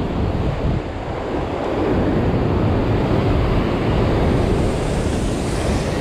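Heavy ocean surf breaking and washing over a sandstone rock ledge, swelling in the second half, with wind buffeting the microphone.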